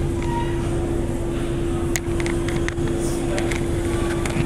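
Steady room hum with a constant single-pitched drone over a low rumble, broken by a few light clicks.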